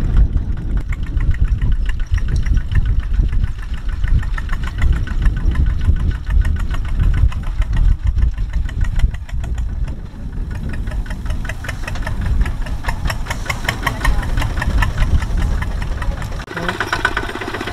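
Single-cylinder diesel engine of a two-wheel walking tractor (power tiller) running hard as it pulls a loaded trailer through a straw-covered field. The engine gives a loud, rapid, even chugging knock.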